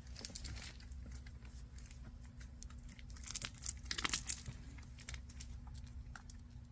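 Dry rustling and crackling, in scattered bursts that are densest about three to four seconds in, over a steady low hum.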